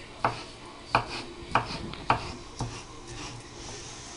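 Kitchen knife chopping a boiled artichoke heart on a wooden cutting board: five sharp knocks of the blade on the wood, about two a second, then a pause near the end.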